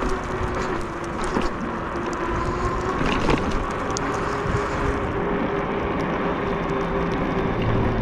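Electric bike riding over a snow-covered street: steady tyre and wind noise with a steady hum under it, and a couple of small knocks.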